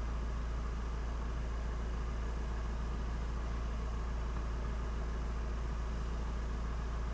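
A car engine idling steadily, with a constant low rumble.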